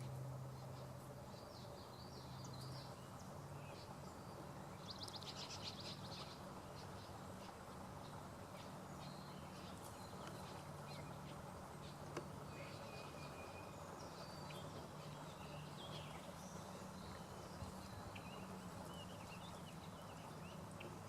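Faint scattered chirps and short calls of small birds over a steady low hum, with a dense buzzy burst of calls about five seconds in.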